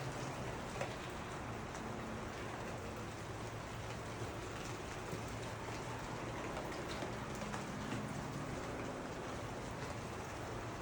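Steady rain falling, with a few sharper drop ticks standing out.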